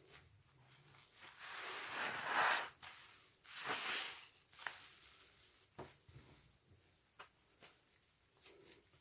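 A sponge soaked with washing-machine liquid squeezed twice, each squeeze a wet, frothy squelch, followed by scattered small clicks and pops.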